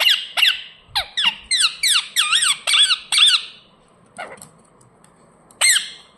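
Indian ringneck parakeet screeching: a fast run of about a dozen shrill calls that sweep up and down in pitch, then a fainter call and one more loud call near the end.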